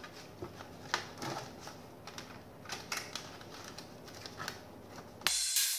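Faint scattered clicks and rustles of a small TV speaker and its wires being handled against the plastic back casing of an opened LED TV, over steady room noise. A louder rush of noise comes near the end.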